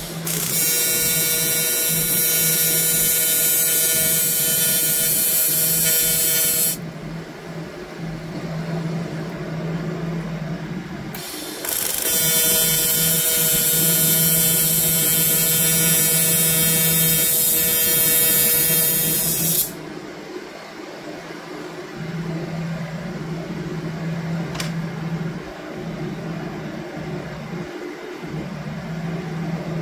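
TIG welding arc from an Everlast Typhoon 230 inverter welder, buzzing and hissing steadily through two welds, one about six seconds and one about eight seconds long. Between and after the welds a quieter steady hum carries on.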